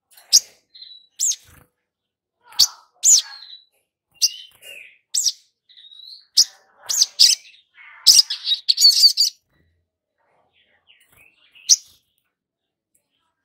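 Olive-backed sunbird giving short, sharp high chirps and quick twittering notes, scattered at first, then a fast run of chirps about eight seconds in that is the loudest part, and one last chirp near the end.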